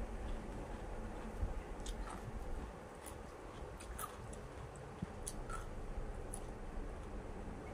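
Mouth sounds of a person biting and chewing crisp raw vegetables close to the microphone: a few sharp, separate crunches starting about two seconds in, over a steady low background hum.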